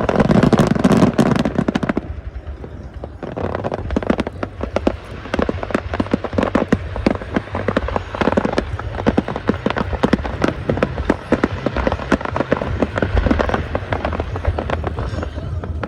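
Fireworks going off in rapid succession: a heavy, deep burst in the first two seconds, then a dense run of sharp crackling pops, many a second.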